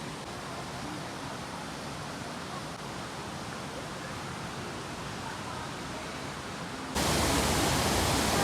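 Steady rushing water of a waterfall and stream; about seven seconds in it suddenly becomes much louder and fuller.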